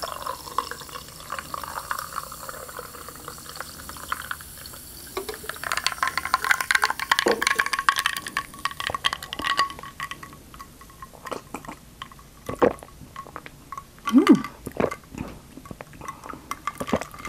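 Sparkling water poured from a can into a glass of ice, fizzing and crackling as the bubbles rise. Near the end come a few gulps as it is drunk.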